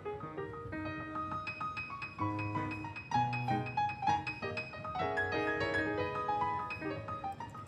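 Background piano music: a quick run of short notes, with a low bass note coming in about two seconds in.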